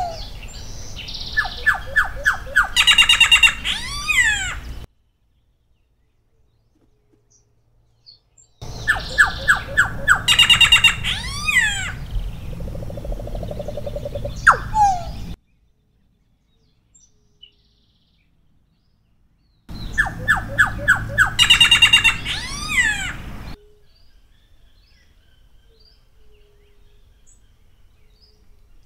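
Solitary black cacique (Cacicus solitarius) singing in three bouts a few seconds apart. Each bout opens with a quick run of repeated short notes, then breaks into loud, rich notes and sweeping slurred whistles.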